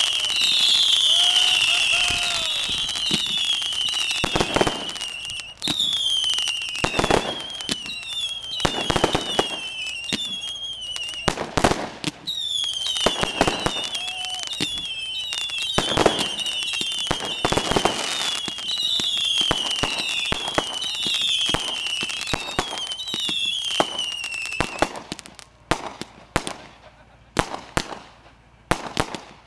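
Fireworks going off: a rapid run of whistling fireworks, each a high whistle falling in pitch, over scattered bangs and pops. About 25 seconds in the whistles stop and only sharp, separate cracks remain.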